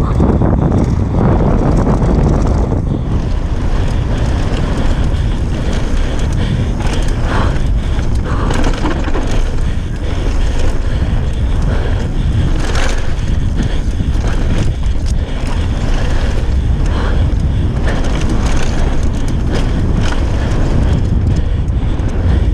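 Downhill mountain bike ridden fast over a dirt trail: loud wind buffeting on the microphone, tyres rolling on dirt, and frequent short knocks and rattles from the bike over bumps.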